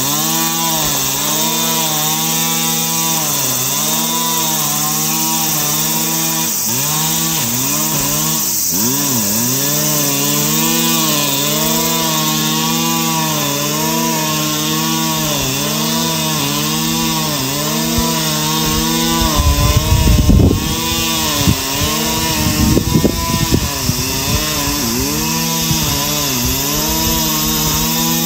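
Two-stroke brush cutter with a nylon cord head cutting grass at high throttle; the engine pitch dips and recovers every second or two as the spinning cord loads up in the grass. A stretch of loud low rumbling comes about two-thirds of the way through.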